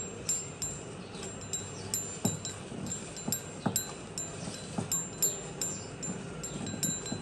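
Small metal bells tinkling in quick, irregular pings, several a second, with a few dull knocks among them.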